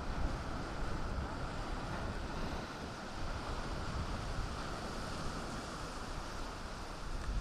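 Sea surf on the shore, a steady rush, with wind rumbling on the microphone.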